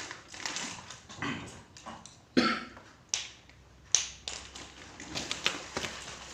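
Packaging being opened and handled: scattered clicks, knocks and rustling, with sharper knocks about two and a half, three and four seconds in.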